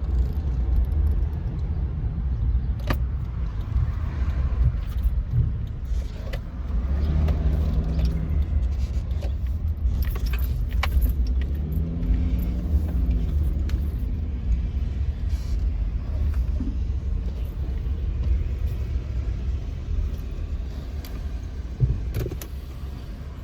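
Car interior while driving: a steady low rumble of road and engine noise, with scattered small clicks and rattles. Twice a low hum briefly rises and falls in pitch, about eight and twelve seconds in.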